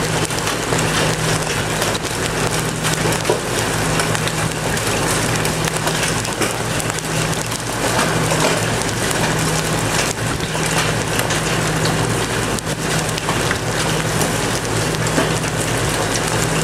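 Large hail falling with rain: a dense steady hiss crowded with sharp clicks and knocks of individual hailstones striking. A steady low hum runs underneath.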